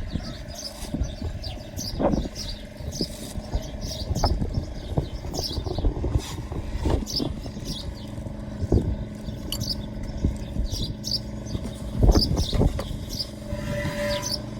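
Irregular knocks and scrapes of hand work on a backhoe, over a steady low hum, with short high chirps repeating throughout.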